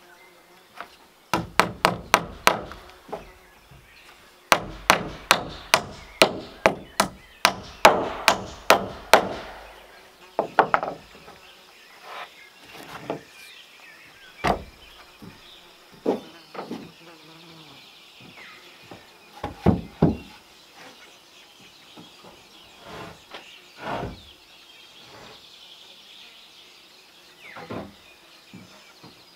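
Hammer blows on wood in two quick runs, the second about a dozen strikes over five seconds, followed by scattered single knocks and taps.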